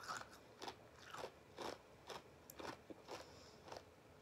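Ice cubes being crunched between the teeth while chewing, faint, with a short crunch about every half second.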